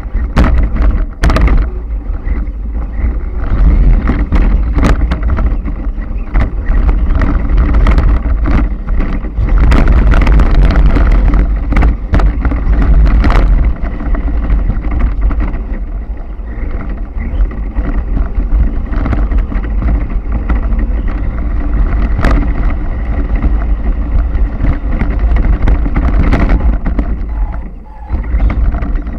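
Onboard sound of a radio-controlled truck driving over rough ground: motor and drivetrain running under a heavy low rumble, with frequent sharp knocks and rattles from the chassis taking bumps. The sound drops away briefly near the end.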